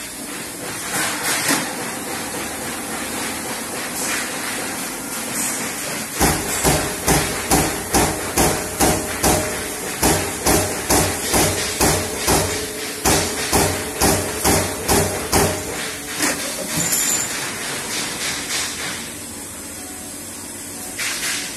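Trumpf Trumatic 500 CNC punch press punching sheet steel: a steady run of sharp punch strokes, about two to three a second, starting a few seconds in and stopping a few seconds before the end. Before and after the strokes the machine runs with a steady rushing noise and a few clicks as the sheet is positioned.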